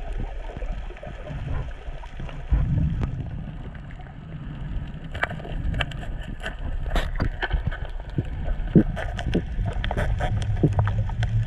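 Underwater sound through a GoPro in its housing: a low rumble of moving water, with scattered sharp clicks and knocks from about five seconds in.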